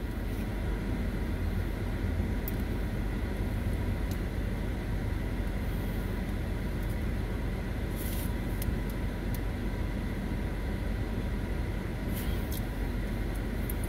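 Steady low hum of a parked car's idling engine and air-conditioning fan, heard from inside the cabin. A few short clicks of eating with chopsticks come through, bunched around the middle and near the end.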